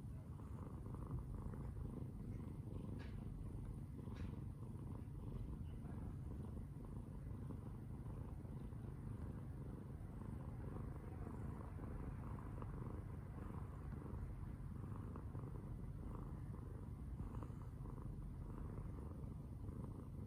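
A domestic cat making a continuous low, purr-like rumble, which is taken for snoring.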